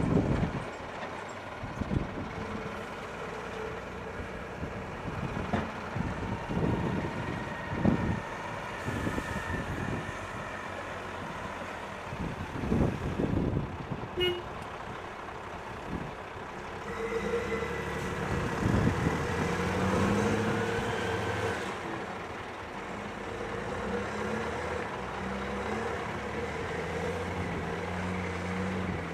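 Volvo L70D wheel loader running while it empties sludge into a steel container, with a series of heavy thumps. From about 17 s in, the Scania R560's V8 diesel engine runs with a shifting pitch as the truck pulls away.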